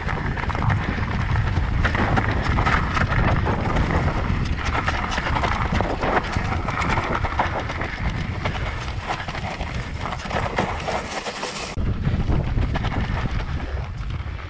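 Riding noise from a Voodoo Zobop-e electric mountain bike: wind buffeting the microphone over tyres rolling on soft ground, with steady rattling and crunching throughout. About twelve seconds in, the hiss at the top end cuts off suddenly.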